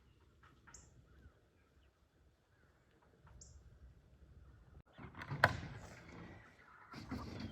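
Quiet outdoor ambience with two short, high bird chirps. From about five seconds in come louder rustling and handling noises, with one sharp knock.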